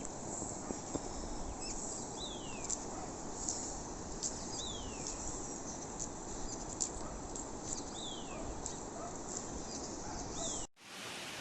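A songbird repeating a short falling whistle four times, a few seconds apart, with other small bird chirps, over steady rushing water. Near the end the sound cuts abruptly to a louder, brighter rush of falling water.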